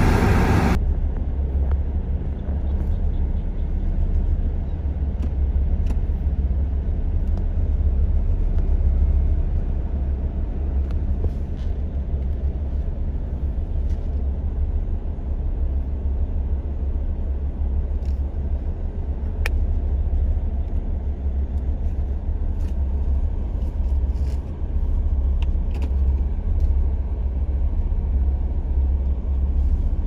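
Liugong single-drum road rollers running as they work the road bed, a steady deep rumble. A brighter, fuller machine sound cuts off within the first second.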